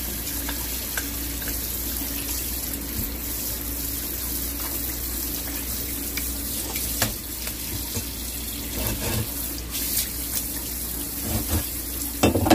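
Kitchen tap running steadily onto a cutting board as a flatfish is rinsed under it. From about halfway in there are scattered scrapes and knocks of the fish being handled and scraped on the board, the sharpest one near the end.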